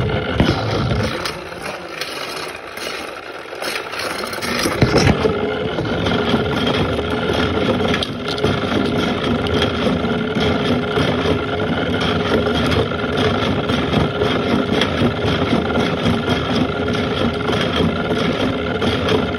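Beyblade Burst Surge spinning top whirring and scraping on a hard table surface, over a steady machine hum with a constant tone. A few sharp clicks come about five and eight seconds in.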